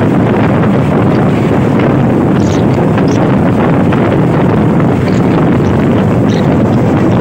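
Heavy wind buffeting the microphone over a steady rush of road and engine noise from a vehicle moving at speed.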